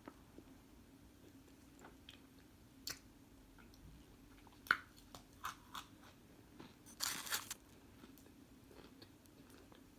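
Microwaved cornstarch chunks being bitten and chewed, giving scattered sharp crunches and a denser burst of crunching about seven seconds in. A faint steady hum runs underneath.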